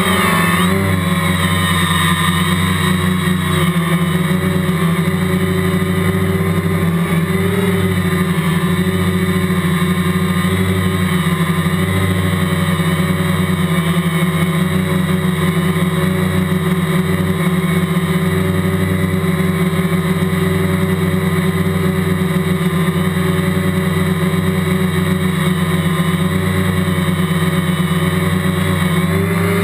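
Quadcopter's electric motors and propellers buzzing steadily in flight, recorded by the GoPro mounted on the drone itself, with slight shifts in pitch as it manoeuvres.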